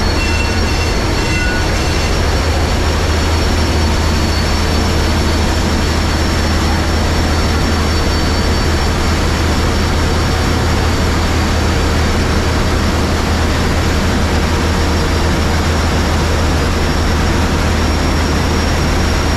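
Large inline multi-cylinder marine diesel main engine of a river passenger launch running, heard close up in its engine room. The sound is loud and steady, with a strong low drone and a thin high whine over it.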